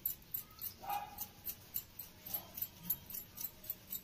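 Boiled potatoes being grated by hand on a grater: a steady run of short scraping strokes, about four a second.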